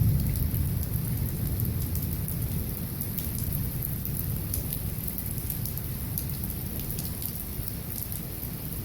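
Thunderstorm: steady rain with scattered drops ticking on hard surfaces, under a low rumble of thunder that slowly fades away.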